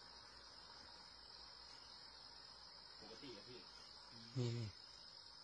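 Crickets chirring as one steady high tone. A person's voice is heard faintly about three seconds in, then a short, louder call just after four seconds.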